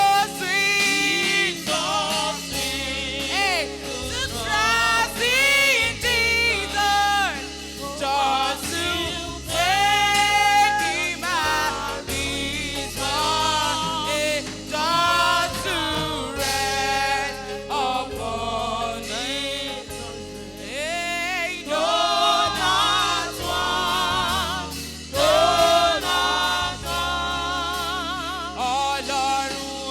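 A gospel choir singing with instrumental backing, sustained melodic lines with vibrato over a steady bass.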